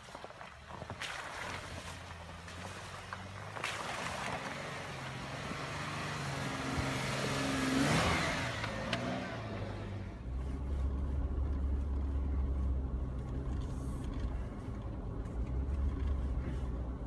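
4x4 off-road vehicle engine working along a rough, frozen trail, the revs climbing under a swelling rush of noise from the tyres and trail that peaks about eight seconds in, then settling into a deeper, steady rumble.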